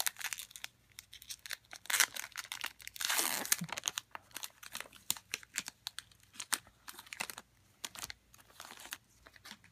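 A football trading card pack's wrapper being torn open by hand and crinkled, with one longer tear about three seconds in among scattered crackles and clicks.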